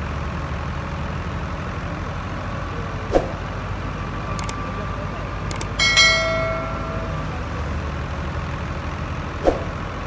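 NH Ghazi tractor's diesel engine running steadily under load while it drives a wheat thresher, a continuous low drone. About six seconds in, a subscribe-button sound effect is laid over it: a couple of faint clicks, then a short ringing bell chime. Two sharp knocks come about three and nine and a half seconds in.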